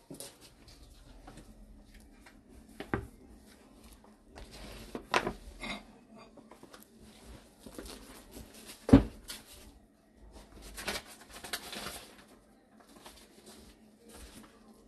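Handling noise: scattered knocks, taps and rustling, with one sharp knock about nine seconds in standing out as the loudest.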